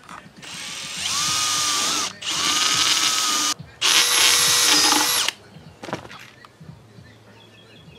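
Cordless drill drilling a hole through a thin metal strip in three runs, each with a steady motor whine; the first starts slow and speeds up about a second in. A short knock follows near the end.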